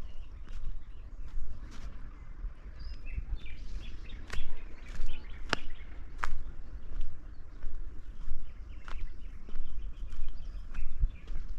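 Outdoor nature ambience: faint bird chirps over a steady low rumble, with scattered sharp clicks throughout.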